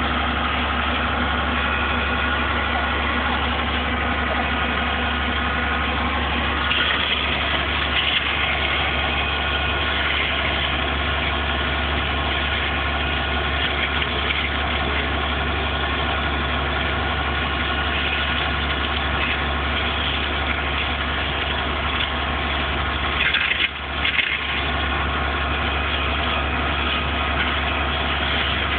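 A vehicle engine idling steadily, with a constant low hum and a brief bump about three quarters of the way through.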